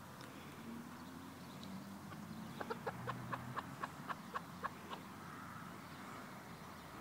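Domestic hen giving a quick run of about a dozen short clucks, about five a second, lasting a couple of seconds midway, over a faint steady low hum.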